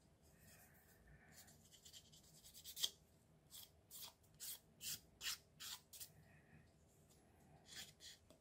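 Faint rubbing and scraping of fingertips on a cardboard strip: a small tick about three seconds in, then a run of about six short strokes, roughly two a second.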